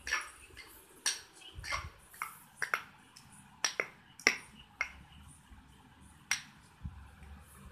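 Steel pestle pounding a wet okra chutney in a small steel cup: irregular sharp knocks, a dozen or so, the loudest about four seconds in.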